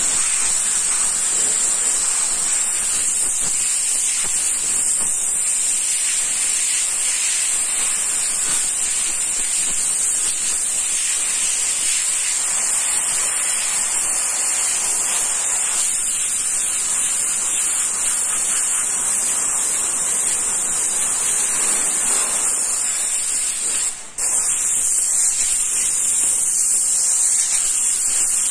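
Airbrush spraying paint: a steady, high hiss of air through the nozzle, which cuts out for a moment once near the end.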